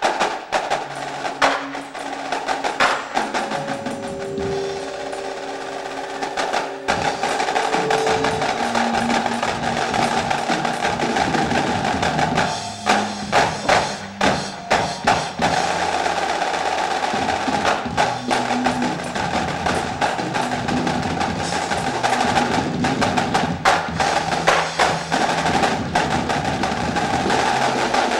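Drum corps percussion section playing an ensemble feature: snare drums in fast rolls and accented hits, with a few short pitched notes held underneath. It stops sharply on a final hit at the end.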